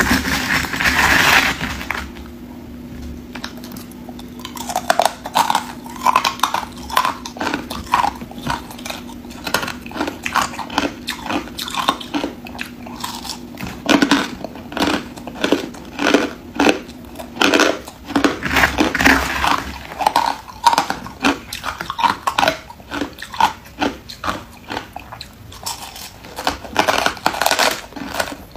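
Crushed ice being bitten and crunched between the teeth, a steady run of crisp crunches about two a second, with a louder burst of crunching in the first second or two.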